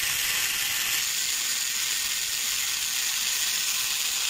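Handheld angle grinder with a thin disc grinding into the edge of a steel plate, a steady hiss of disc on metal. It is cutting a shallow groove in the plate as weld preparation.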